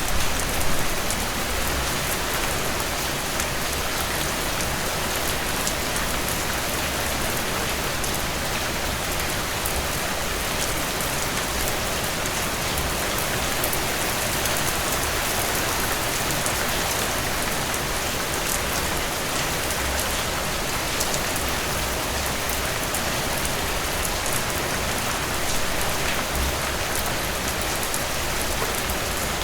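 Steady heavy rain, a dense even hiss of rainfall with fine drop patter on surfaces and no thunder.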